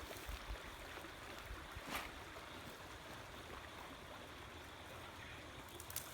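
Faint steady outdoor noise, with a short click about two seconds in and a few more clicks near the end.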